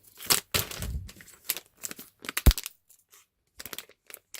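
Plastic blind-bag packaging crinkling and tearing in irregular bursts as it is opened by hand, with one sharp snap about two and a half seconds in.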